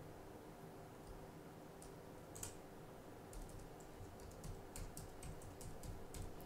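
Computer keyboard being typed on: soft, scattered keystroke clicks, with a quick run of several keys about three to five seconds in.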